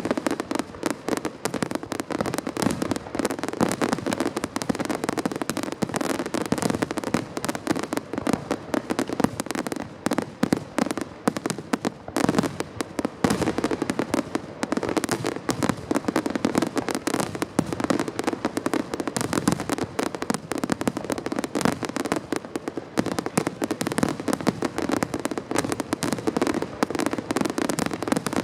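Fireworks finale barrage: a dense, unbroken stream of shell bursts, one on top of another with no pause, over continuous crackling.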